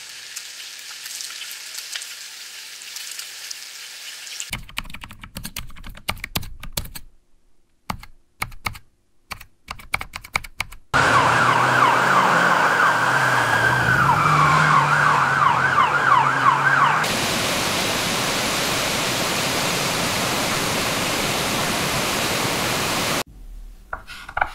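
A string of short AI-generated sound effects from MMAudio: a rapid run of sharp clicks like typing, then a loud wavering siren-like wail over noise, then a steady hiss.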